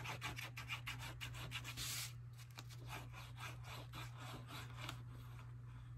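Fine-tip glue bottle nozzle scratching across paper in quick back-and-forth zigzag strokes as glue is laid down. The strokes are densest in the first two seconds, then slower and further apart.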